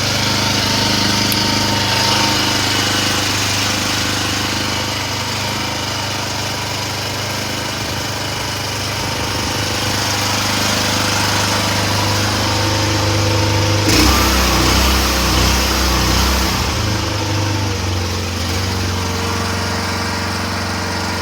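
Small Rato engine of a 1-ton mini excavator running steadily. About two-thirds of the way in, the sound turns abruptly louder and rougher in the low end for about three seconds, then settles back to a steady run.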